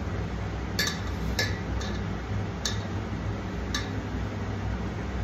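Hands scooping and pressing a puffed-amaranth and jaggery mixture in a steel pot to shape laddoos, giving five light, sharp clicks against the steel within about four seconds, over a steady low hum.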